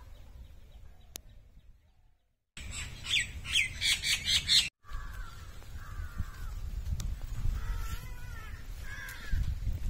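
Birds chirping and squawking densely and loudly for about two seconds, cutting off suddenly. Fainter scattered bird calls follow over a low rumble of outdoor background.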